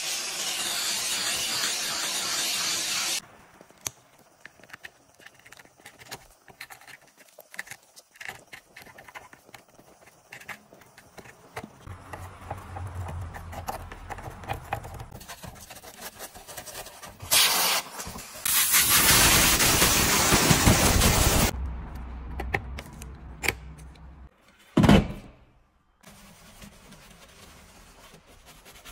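Handheld steam cleaner hissing for about three seconds. Then quiet scraping and ticking from a small plastic tool worked into a seat-rail mechanism. Later there is a second loud hiss of about three seconds and a short burst, then faint brushing.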